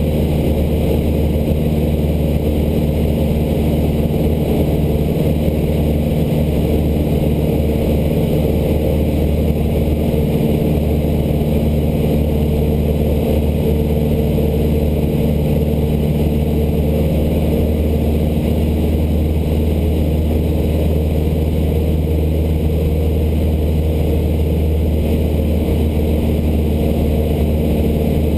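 Cessna 152's four-cylinder Lycoming engine and propeller droning steadily in flight, at an unchanging pitch, heard from inside the cockpit.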